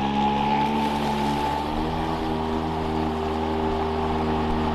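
Toro 60V Flex-Force battery lawn mower running under load as it mulches a pile of grass clippings: a steady high electric whine over a hum, shifting slightly in pitch about two seconds in. The mower's electronics raise the motor speed as the load comes on rather than letting it bog down.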